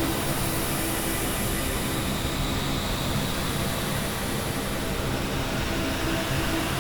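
Experimental noise-drone music: a dense, steady wash of hiss and rumble with a few low sustained tones held underneath, at an even level and with no beat or melody.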